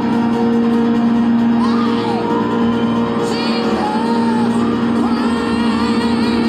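Live church praise-team music: sustained held chords with voices singing and whooping over them.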